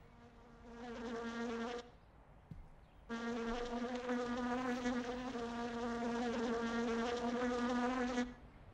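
A housefly buzzing as a steady drone. It is heard briefly at first, then again for about five seconds before it cuts off near the end.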